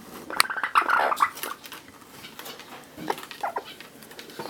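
Amazon parrot giving a short call about half a second in, lasting under a second, with sharp clicks around it and a few smaller sounds later.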